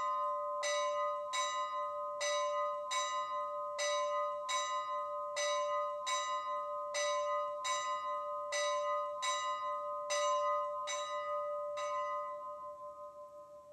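Locomotive bell sound from a TCS WOWSound DCC sound decoder, played through the small speaker in an HO-scale model steam locomotive's tender. The bell rings in an even swing, about one and a half strikes a second; the strikes stop near the end and the ring fades away.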